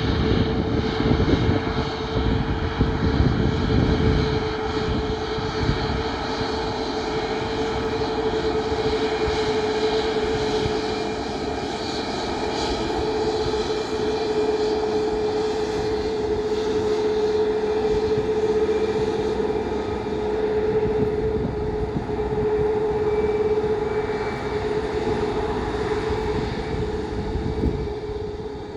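Boeing 737 MAX 8-200 jet airliner's CFM LEAP-1B turbofan engines running loudly and steadily, with a constant whine over the engine noise that eases slightly near the end.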